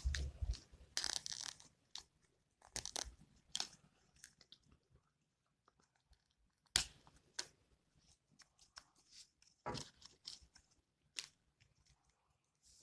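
Plastic drinking straws and clear sticky tape handled on a hard tabletop: irregular crinkles, taps and clicks, with short scratchy bursts of tape being pulled and pressed down, the busiest in the first few seconds.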